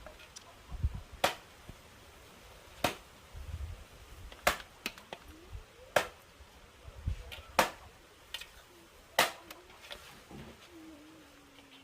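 Six sharp knocks or cracks, evenly spaced about a second and a half apart.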